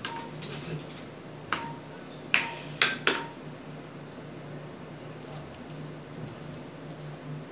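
Keys pressed on an ultrasound machine's console, five sharp clicks each followed by a short beep, the last three close together, over the machine's steady low hum.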